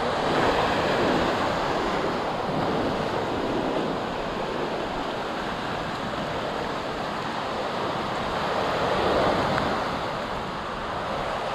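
Small surf breaking and washing up a sandy beach in a steady, hissing wash, swelling as waves break about half a second in and again about nine seconds in.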